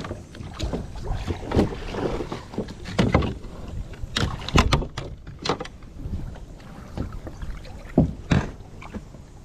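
Water splashing and irregular sharp knocks against a kayak hull as a hooked bowfin is brought alongside and grabbed by hand. The sharpest knocks come in a cluster around the middle and again near the end.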